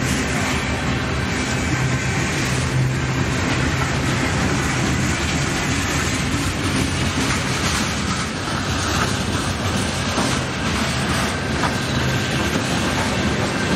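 A Union Pacific freight train rolling past, a steady, even noise of its wheels and cars on the rails.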